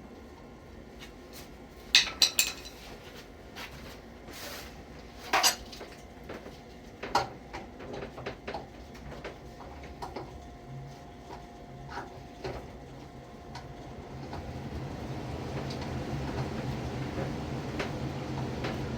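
Intermittent metal-on-metal clinks and clanks of plumbing tools and fittings being handled, with a few sharp strikes in the first half. A steady low hum swells in over the last few seconds.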